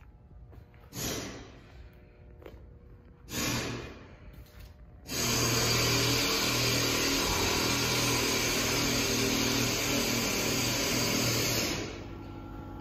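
Compressed air hissing from an air tool: two short bursts, then one long blast of about seven seconds that starts and stops abruptly, with a steady hum under it.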